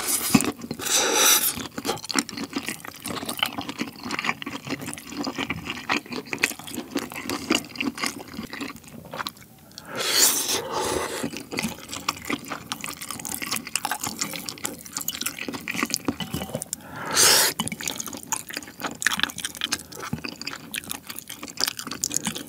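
Close-miked wet chewing and mouth smacking of saucy spicy rice cakes and sausage in melted cheese, full of small sticky clicks. A few longer, louder wet sounds come about 1, 10 and 17 seconds in.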